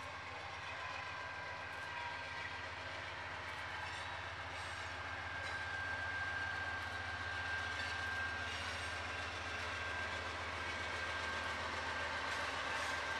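Norfolk Southern freight train approaching and passing behind its diesel locomotive: a steady low rumble that slowly grows louder, with a thin, steady high-pitched tone over it.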